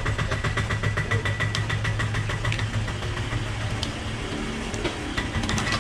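Eggs being cracked with a knife blade against a steel mug, a few short sharp taps, over a steady low motor hum.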